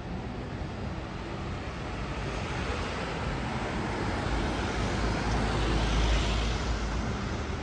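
Road traffic: cars and a van driving past close by on a city street. The tyre and engine noise swells to its loudest about six seconds in as a vehicle passes close, then eases.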